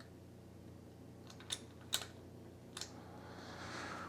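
A few faint, sharp metallic clicks: the pushrod and rocker arm of a 2.8L V6 being worked by hand while checking for valve lash. A faint hiss rises near the end.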